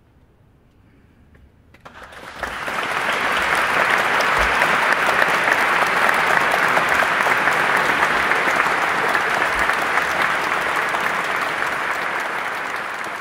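Audience applauding. A quiet hush for about two seconds, then applause breaks out, builds quickly and holds steady, easing off slightly near the end.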